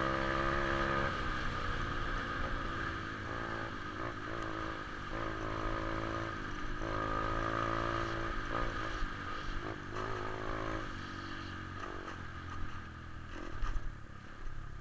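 A 125 cc pit bike engine running during a ride. It holds a steady note for about a second, then the throttle comes on and off repeatedly, the engine note rising and falling and dropping away in short gaps.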